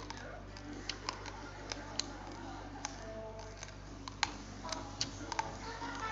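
Close-up eating sounds of a person chewing red rice: a string of irregular sharp clicks and smacks, about two or three a second.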